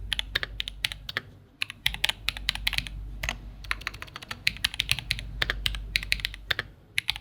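Typing on a Cyberboard mechanical keyboard with Holy Panda tactile switches and GMK keycaps: quick runs of keystroke clacks, broken by short pauses, one about a second and a half in and another near the end.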